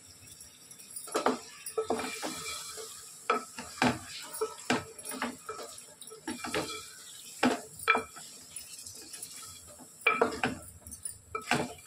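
Metal spoon knocking and scraping against a cooking pot as chicken is stirred into the masala, in irregular clinks, with a faint sizzle underneath.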